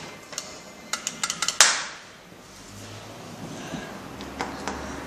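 Lift mechanism making a quick run of light metallic clicks, then one sharp clank about a second and a half in, followed by a low quiet hum.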